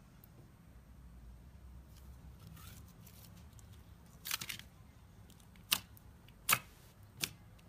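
Thick, glossy slime squeezed and pressed by hand: faint handling noise at first, then a short cluster of sharp pops about four seconds in, and three more single sharp pops, each under a second apart, as fingertips press into it.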